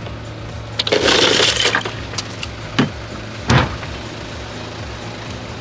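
Ice cubes crunching and rattling against glass bottles as a bottle is pulled out of a cooler of ice, followed by two short sharp clicks. A steady low hum runs underneath.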